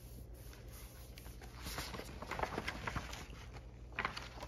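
Paper pages of a picture book rustling as they are handled and turned, with a sharper swish of a page turning about four seconds in.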